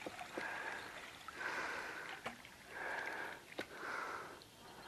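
Water swishing softly against a kayak hull in three or four gentle swells, with a few faint clicks.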